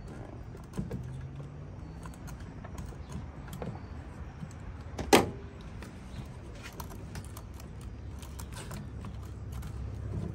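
Small clicks and rattles of hands and tools working a coolant hose off a plastic coolant overflow tank, with one sharp clack about five seconds in.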